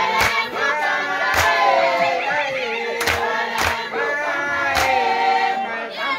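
A crowd singing together with hand clapping and about five loud, sharp strikes at irregular intervals.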